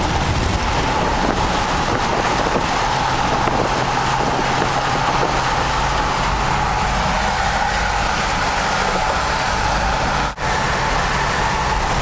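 Steady road noise of a vehicle cruising on a freeway, heard from inside the cabin: engine drone, tyre noise and wind. It cuts out for an instant about ten seconds in.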